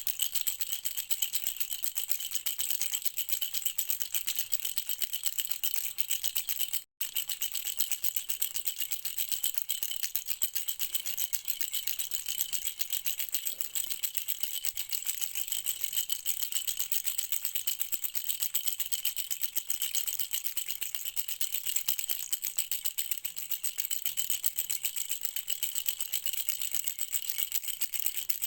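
Baby rattle shaken fast and without a break, a dense, high rattling that cuts out for a split second about seven seconds in.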